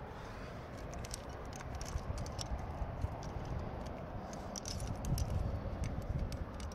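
Climbing gear racked on a harness, carabiners and cams, clinking and jangling in irregular light clicks as the climber moves, over a low steady rumble.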